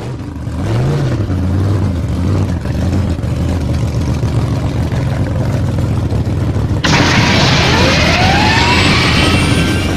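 An engine running with a low steady note and a brief blip in pitch about a second in, then, about seven seconds in, a sudden louder burst as it revs up in a whine that climbs steadily in pitch.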